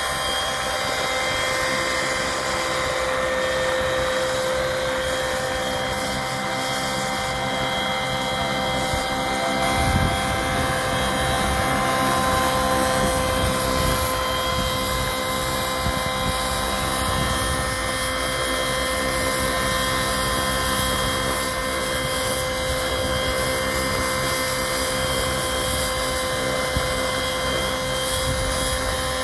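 Radio-controlled scale model Sikorsky S-76 helicopter in low hover and slow flight: a steady high-pitched whine from its drive and rotors over the rush of the blades, with a short low rumble about ten seconds in.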